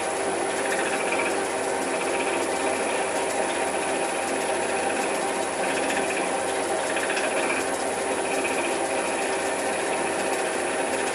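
Raglan 5-inch lathe running steadily in screwcutting mode, giving a constant mechanical whir with several steady tones. A faint higher rasp comes and goes every second or so.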